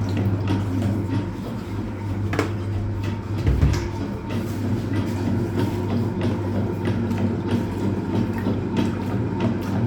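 Hoover Automatic 820 top-loading washing machine running through its wash cycle: a steady motor hum under rapid clicking and churning, with a low thump about three and a half seconds in.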